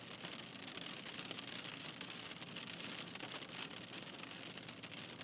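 Steady hiss of rain pattering on a car, heard from inside, with many fine scattered drop ticks.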